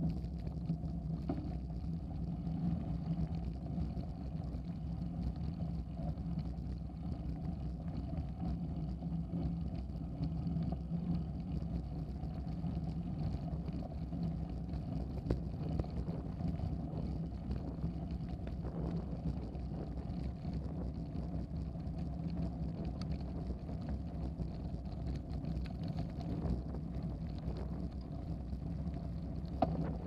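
Bicycle riding over a dirt and gravel trail, heard through a handlebar-mounted camera: a steady rumble of tyres and frame vibration with a constant low hum.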